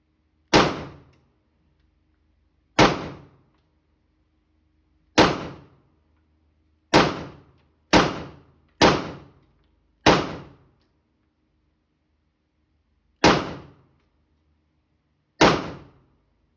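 Handgun shots fired one at a time, nine in all, spaced about one to three seconds apart, each a sharp crack with a short ringing tail.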